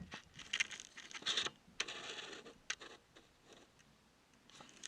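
Light handling noise: a few short scratches and sharp taps, typical of fingers working a smartphone's touchscreen and case.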